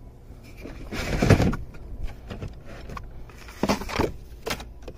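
Handling of a metal tool set and its tool-box drawers: a short scrape with a thud about a second in, then a few light clicks and knocks.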